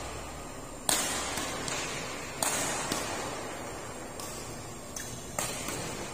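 Badminton rally: rackets striking the shuttlecock, three sharp cracks about one and a half to three seconds apart, each ringing on in the echo of a large hall, with fainter knocks between.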